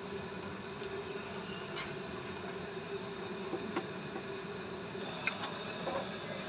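Electric stand fan's motor humming steadily with a buzzing tone, with a few faint clicks scattered through.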